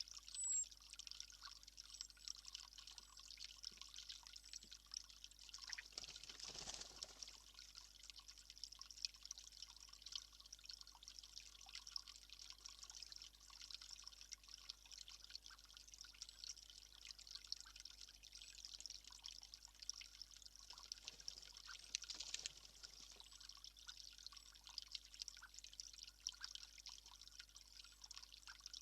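Faint steady trickling of water with fine dripping ticks. A single short high-pitched note sounds about half a second in.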